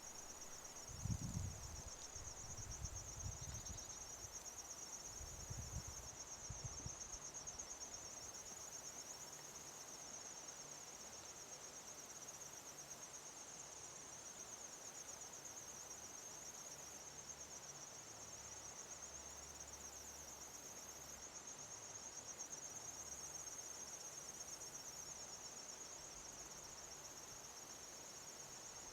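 Crickets trilling in a steady, high-pitched chorus. A few faint low rumbles sound in the first several seconds, the strongest about a second in.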